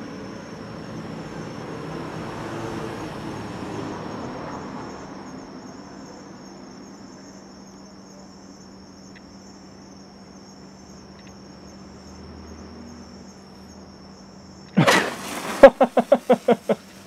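Hand-held firework burning with a hiss, over steady chirping crickets. Near the end a second firework goes off suddenly and loudly with a rapid pulsing, whistling buzz, a strange, startling firework.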